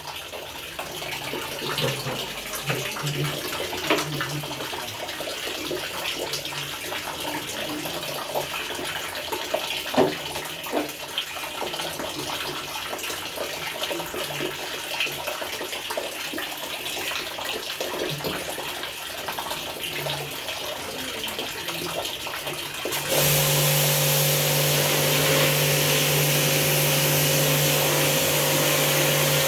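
Water running and splashing with scattered clicks and knocks, with brief bursts of motor hum; about 23 seconds in, an electric water-pressure jet pump starts and runs steadily, a motor hum under the loud hiss of its spray.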